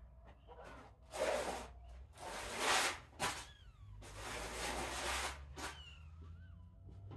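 Very young kittens mewing faintly in thin, falling cries, among several short bursts of rustling noise, the loudest almost three seconds in.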